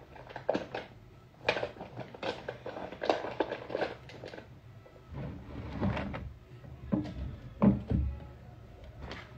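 A string of light knocks and clatters from small objects being handled and set down, with a few heavier low thuds in the second half, the loudest about eight seconds in.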